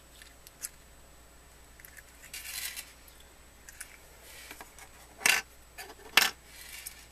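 Small handling sounds from a metal pendant locket and its presentation case: a few light ticks, a brief scratchy rustle, then two sharp clicks about a second apart near the end.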